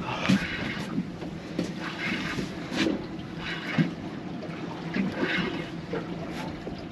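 Wind and water around a small boat at sea: irregular splashes and slaps against the hull over a low, steady engine hum.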